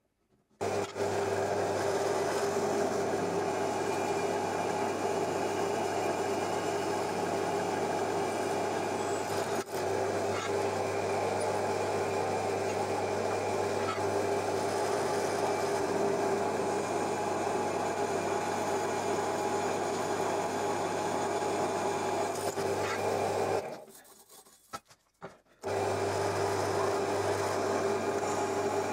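Drill press running, its bit drilling into an aluminium plate: a steady motor hum with the bit's cutting noise. It breaks off for about two seconds near the end, then starts again.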